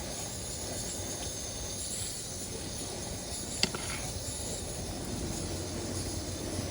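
Chopped onions sizzling in hot oil in a pan, a steady hiss. One sharp click sounds about halfway through.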